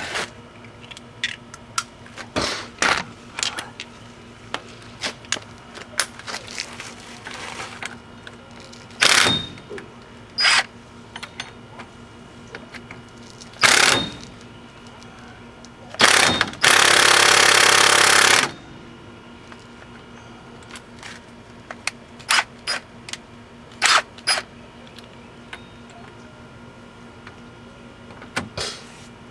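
Impact wrench hammering on a stuck wheel-hub mounting bolt in several short bursts and one longer burst of about two seconds, without breaking it loose. Metal clinks of the socket and tools come between the bursts.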